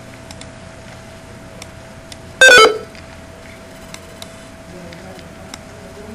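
A short, loud electronic telephone tone from a computer softphone, lasting under half a second, about two and a half seconds in. A few faint clicks sit under a faint steady background tone.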